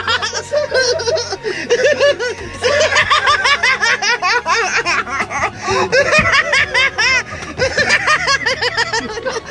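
People laughing loudly and almost without pause, a string of quick rising-and-falling ha-ha's that keeps going.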